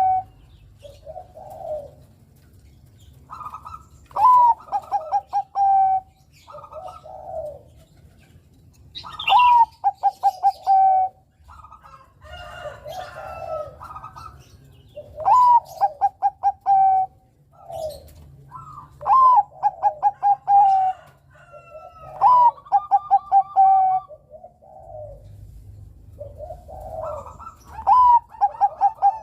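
Zebra dove (perkutut, Bangkok song type) cooing. About six phrases come every four to six seconds, each a short rising opening note followed by a quick run of clipped coos, with softer calls between the phrases.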